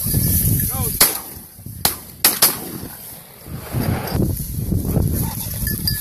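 Four shotgun shots fired at flushed game birds: one about a second in, then three more in quick succession over the next second and a half.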